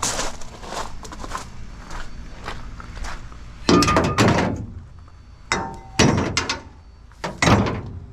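Footsteps, then scrap metal being handled and thrown down: four or five loud clanks in the second half, some ringing briefly.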